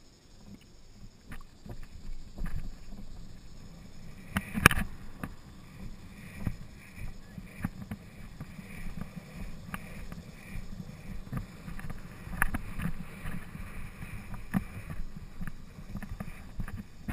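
Hoofbeats of a polo pony on grass, with the rattle of tack and wind on the microphone, and a single sharp knock about four and a half seconds in.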